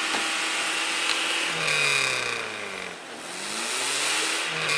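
UAZ off-roader's engine revving as it spins its wheels, stuck in wet snow. The engine pitch holds steady at first, then sinks, climbs again about three seconds in, and sinks once more near the end.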